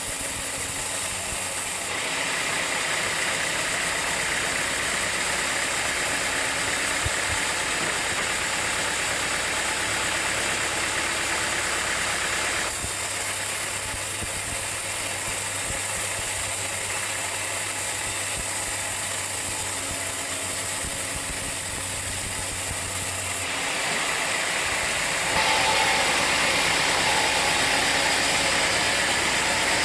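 Sawmill machinery running steadily, with a continuous mechanical drone and hiss. Its sound changes suddenly several times, getting louder and brighter about two seconds in and again near the end.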